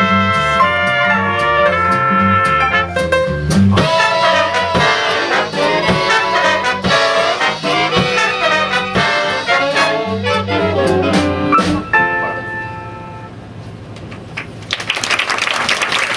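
Jazz big band of trumpets, trombones, saxophones and upright bass with rhythm section, playing the closing bars of a tune, ending on a held chord about twelve seconds in. Audience applause breaks out near the end.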